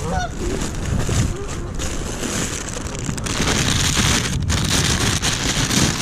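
Canada geese honking, with sliding calls in the first second or so.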